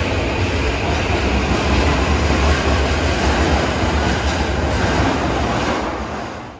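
Toei Asakusa Line subway train running at the station platform: a loud, steady rumble that dies away near the end.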